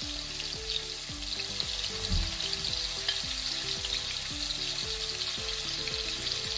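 Marinated chicken pieces sizzling steadily as they fry in hot coconut oil in a metal wok, with soft background music underneath.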